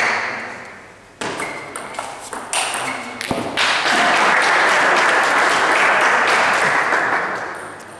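Table tennis ball clicking off bats and table in a quick rally for the first few seconds. Then a few seconds of loud, even noise that fades near the end.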